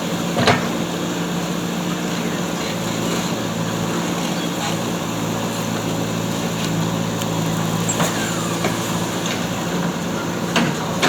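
Diesel engine of a JCB backhoe loader running at a steady pitch, with a few sharp knocks: one about half a second in, one about two-thirds through, and a pair near the end.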